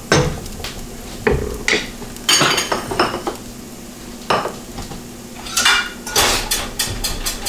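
A wooden spatula knocking against a nonstick wok of fried rice and then being set down, followed by clinks and clatters of dishes as a plate is fetched. A faint sizzle from the pan runs underneath.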